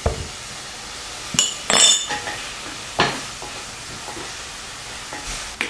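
Soy sauce sizzling in melted butter and aromatics in a stainless pan as a wooden spatula stirs it in, with a few sharp knocks. A bright, ringing clink about a second and a half in comes from a metal measuring spoon being set down in a ceramic ramekin.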